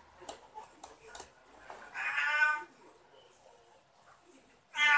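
A domestic cat meows once, a short steady call about two seconds in, and a second meow begins right at the end. A few light clicks come before the first meow.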